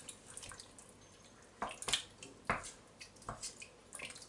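Wooden spoon stirring chunks of raw beef through a wet onion and tomato mixture in a stainless steel pot: a handful of short, scattered wet squelches and light taps, with quiet gaps between them.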